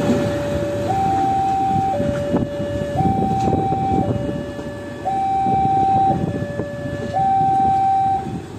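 Two-tone hi-lo siren alternating between a lower and a higher pitch about once a second, stopping near the end, over the rumble of a passenger train rolling away on the rails.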